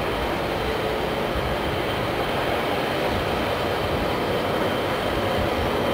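Diesel locomotive running steadily as it rolls slowly toward the microphone, a single unit with no cars behind it.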